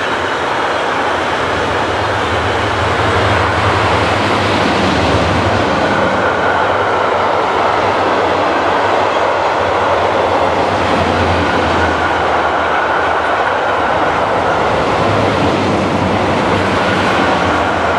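Freight train of double-deck car-transporter wagons loaded with new cars rolling past: a loud, steady rumble and rush of wheels on rail.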